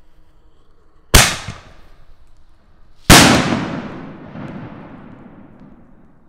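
Consumer artillery shell firework: the lift charge fires from the mortar tube with a sharp bang about a second in, then the shell bursts overhead about two seconds later with a louder, very loud report that echoes and fades over a few seconds.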